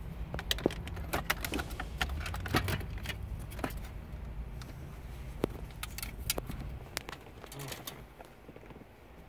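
2007 Acura TL's plastic shifter bezel being prised up with a plastic trim removal tool: a scatter of light clicks and taps from the trim and its clips, over a low rumble, dying away near the end.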